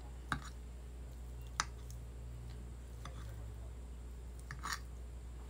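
A few light clicks of a fork against a plate as food is cut, three in all, the sharpest about a second and a half in, over a low steady hum.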